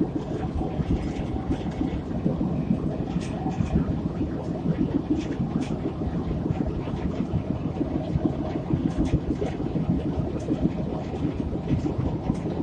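Locomotive running slowly along the track: a steady rumble with scattered clicks and knocks from the wheels and running gear.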